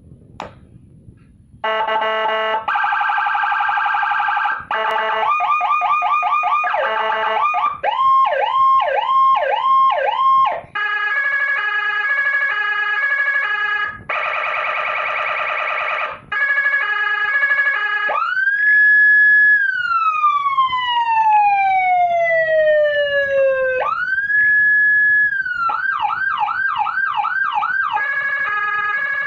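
80-watt electronic siren module cycling through its tones, switching pattern every couple of seconds: steady buzzing tones, fast yelps, pulsed two-tone patterns, and a wail that rises, falls slowly over about five seconds, then climbs back up and breaks into a yelp again.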